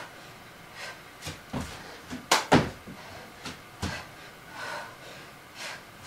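Irregular thuds of a person's hands and feet landing on an exercise mat over a wooden floor during burpees, the loudest about two and a half seconds in.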